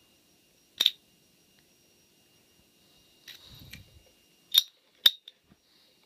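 A heavy brass padlock being handled: a sharp click about a second in, a soft rustle around three and a half seconds, then two more sharp clicks half a second apart near the end.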